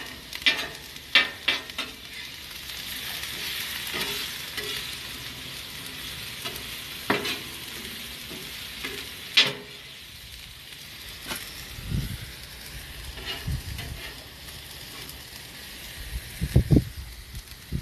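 Ribeye strips and sliced peppers and onions sizzling on a hot flat-top griddle, with a metal spatula clacking and scraping on the griddle every few seconds as the food is stirred. A few dull low thumps near the end.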